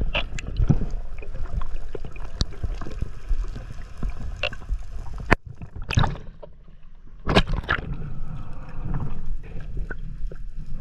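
Water sloshing and gurgling against a camera in its underwater housing as a spearfisher swims, with scattered clicks. A sharp click comes a little past five seconds, and a loud splash comes about seven seconds in as the camera, having broken the surface, goes back under.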